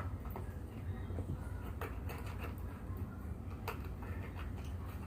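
Room tone with a steady low hum and a few light, isolated clicks or taps, about one every couple of seconds.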